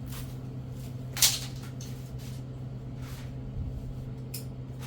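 Handling noises from work on a car door's window trim: one short, sharp scrape about a second in, then a few fainter rustles and knocks, over a steady low hum.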